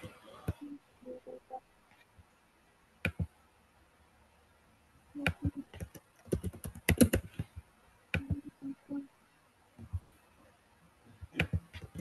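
Typing and clicking on a computer keyboard in short bursts, with pauses between them.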